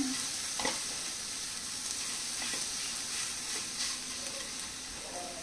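Silicone spatula stirring and scraping grated dry-coconut stuffing in a nonstick pan, with a light, steady sizzle as it roasts on a low flame and a few short scrapes of the spatula.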